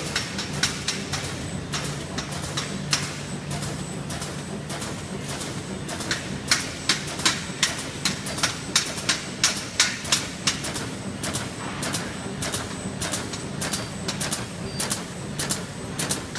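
CWZD-400A three-side-seal bag-making machine running, its spring-loaded sealing heads clacking in a steady rhythm two to three times a second over a steady motor hum.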